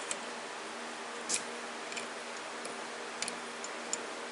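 A handful of light, irregular metallic clicks from hand tools being worked at the lathe during hand-tapping of a steel pin, over a steady low hum and hiss. The loudest click comes about a second and a half in.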